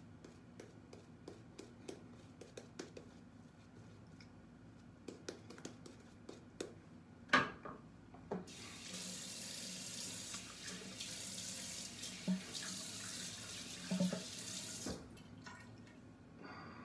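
Bathroom sink tap running steadily for about six seconds, starting after a sharp clack a little past a third of the way in and shutting off abruptly near the end. Before it, soft scratchy ticks of a badger shaving brush working lather on the face.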